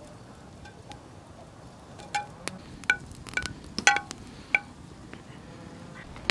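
A metal utensil clinking and scraping against an aluminium frying pan as butter is pushed around it: about six sharp clinks, each with a short metallic ring, between about two and five seconds in, the loudest near four seconds.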